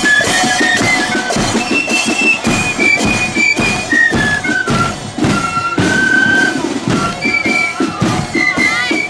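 Marching flute band playing a tune: flutes carry a high melody over snare drums, bass drum and cymbals beating a steady march rhythm.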